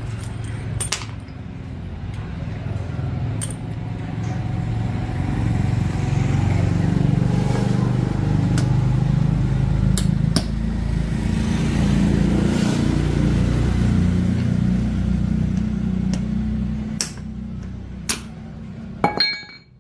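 A motor running steadily with a low hum that builds over the first few seconds and falls away near the end, with scattered sharp clicks and clinks.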